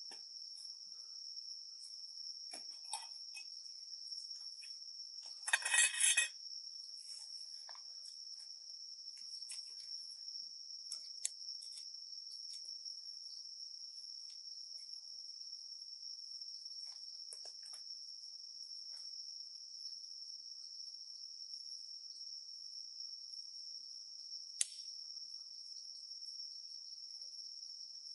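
Steady high-pitched insect chorus of crickets trilling, with a brief louder clatter about six seconds in and a single sharp click near the end.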